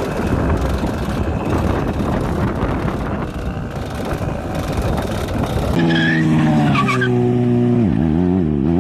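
Motorcycle engines during wheelies: first a rough, noisy engine sound mixed with wind, then a sportbike engine holding a steady note that drops sharply in pitch near the end and climbs back as the throttle is eased and reopened.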